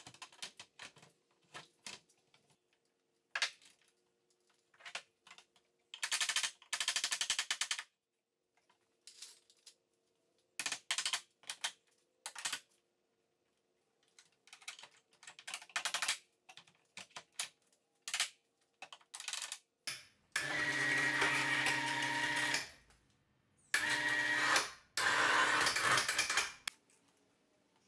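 Cordless impact driver hammering in short rapid bursts on the stairs' pivot bearing mounts, among scattered clicks and knocks of handling. Near the end an electric winch hoist runs three times with a steady motor whine and rattle, stopping briefly between runs as it raises the staircase.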